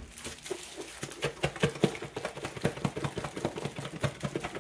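A lidded plastic container shaken hard by hand, the wet chicken nugget mixture inside knocking and thudding against its walls in quick, irregular strokes.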